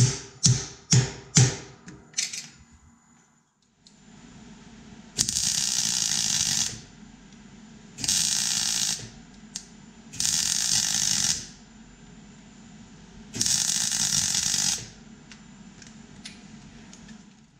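Several sharp mallet blows on a steel band held in a bench vice in the first two seconds, then four short bursts of electric arc welding, each about a second or so long, with a low steady hum between them.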